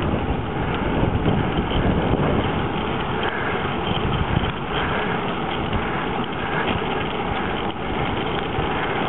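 Steady wind rushing over the microphone of a camera carried on a moving bicycle, an even noise with no distinct events.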